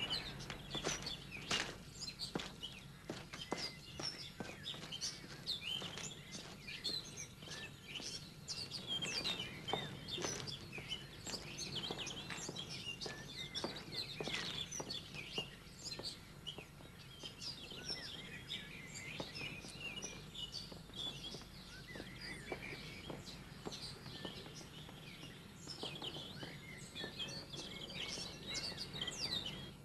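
Several small birds chirping and twittering in quick, short calls throughout, over a steady low hum.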